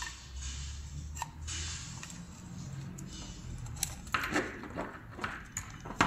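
Scattered light clicks and handling rustle as a wired circuit board is pushed back into its extruded aluminium case.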